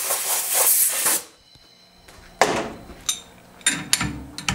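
Compressed-air blow gun hissing as it blasts chips off a tapped steel bar in a machine vise, cutting off about a second in. After a short pause, a few sharp metal clinks and knocks as the part and vise are handled.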